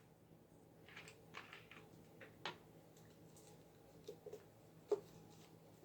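Near silence with a few faint, scattered taps and clicks of things being handled; the sharpest come about two and a half and five seconds in.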